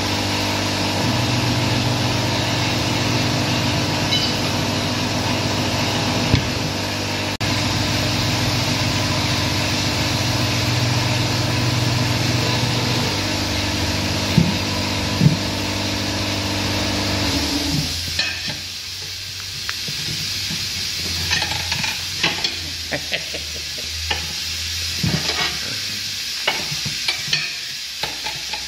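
Tire changing machine running with a steady motor hum and hiss while an ATV tire is worked over its rim. The machine stops about two thirds of the way through, leaving scattered clicks and knocks of a tire iron and hands on the tire and rim.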